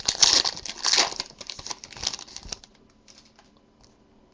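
Trading cards being handled and flipped through by hand: quick dry flicks and rustling of card stock. It stops about two and a half seconds in, leaving only faint scattered clicks.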